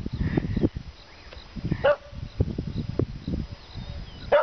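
A dog barks twice, once about two seconds in and once near the end, over irregular low rumbling noise.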